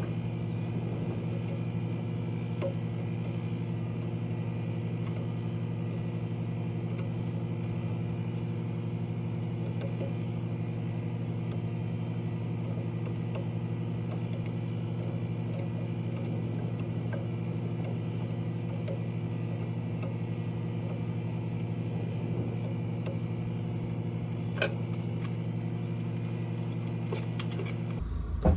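Steady, unchanging low mechanical hum of a running engine or motor, with one faint click a few seconds before the end. The hum stops abruptly near the end.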